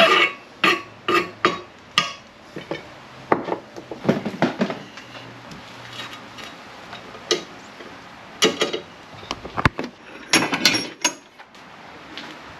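Irregular knocks and clatter of tools and parts being handled on a workbench, with short louder groups of knocks near the start and again about eight to eleven seconds in.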